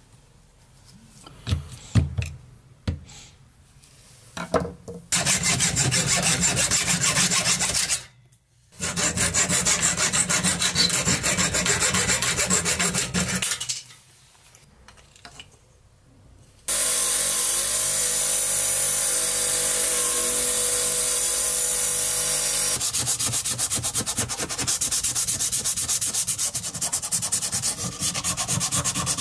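Hand work on a rusty billhook: a few knocks and scrapes in the first few seconds as the old wooden handle is pried off. Then long runs of fast, even rubbing strokes of an abrasive on rusty steel, stopping briefly twice, with sandpaper scouring rust off the blade near the end.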